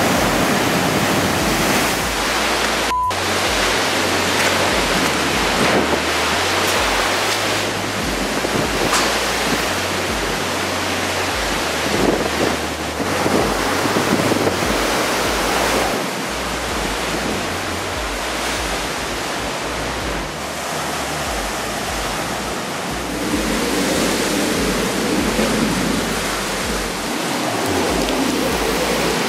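Hurricane wind and rain from a high-end Category 4 storm: a loud, continuous rushing noise that swells and eases with the gusts, with heavy surf breaking at the start.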